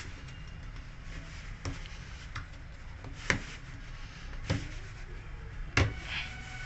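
A handful of sharp, irregular knocks and clicks, five in all and a second or so apart, as tools and parts are handled while a front-load washing machine's door gasket is being worked on. A low steady hum lies underneath.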